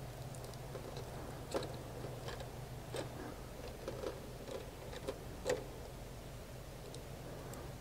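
Scattered small clicks and ticks from hands splicing electrical wires, with a steady low hum underneath.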